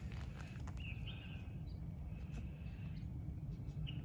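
A few faint, short chirps of small birds over a steady low background rumble, with some light ticks in the first second.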